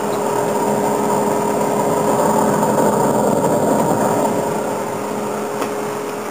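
Wood-gas flare from a wood gasifier burning a large volume of producer gas at the mouth of a 6-inch pipe: a steady rushing roar with a steady hum underneath.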